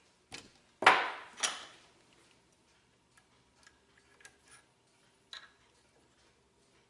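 Small metal parts of lathe tooling knocking and clicking as they are handled and fitted together by hand. Two sharp clunks with a short ring come about a second in, then scattered light taps and clicks.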